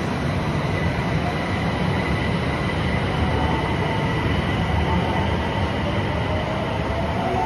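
Osaka Metro Tanimachi Line subway train pulling out of an underground station platform: a steady rumble of wheels on the rails with a faint, steady high tone over it.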